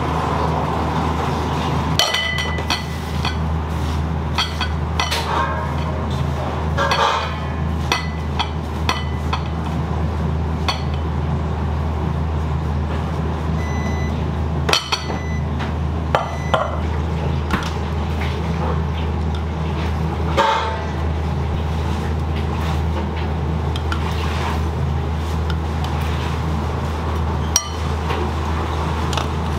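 Kitchen work sounds: scattered metallic clinks and knocks of pots, dishes and utensils, some ringing briefly, over a constant low hum.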